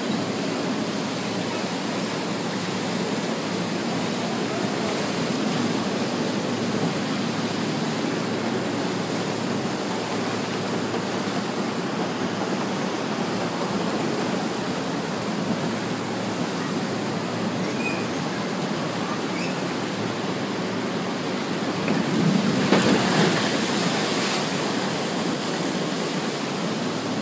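Water rushing steadily down the concrete channels of a fairground flume ride and churning in its splash pool. About two-thirds of the way through, a louder surge of splashing rises for a couple of seconds.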